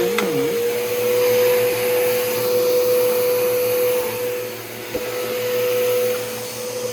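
Bissell PowerForce Bagless Turbo upright vacuum cleaner running: a steady motor whine over a rush of air, the loudness swelling and fading. A second, lower tone dips briefly just after the start, and there is a single click about five seconds in.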